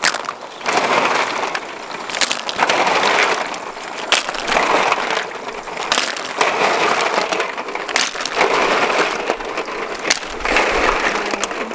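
Large freshwater snails being dropped and poured onto a woven bamboo basket, their shells clattering against each other and the wicker in repeated rattling bursts every second or two.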